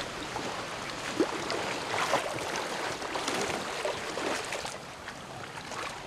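River water rushing steadily, with a few faint splashes and knocks.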